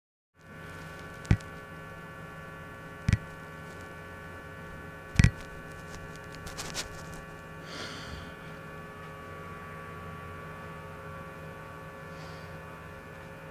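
A steady electrical hum, broken by three sharp clicks about two seconds apart in the first five seconds. There are two faint soft hisses later on.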